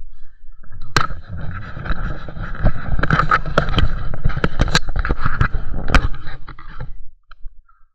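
Camera handling noise: loud rustling and crackling with many sharp knocks as the camera is jostled and brushed against fabric. It starts just under a second in and cuts off about seven seconds in.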